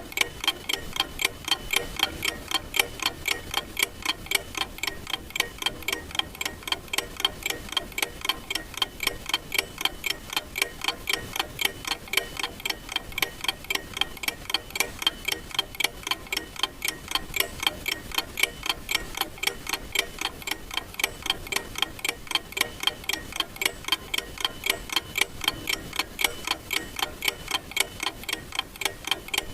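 Clock ticking: sharp, evenly spaced ticks, a few a second, at a steady rate.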